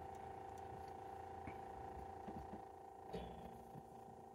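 Faint steady electrical hum and whine from running bench test equipment, with a few soft clicks of handling.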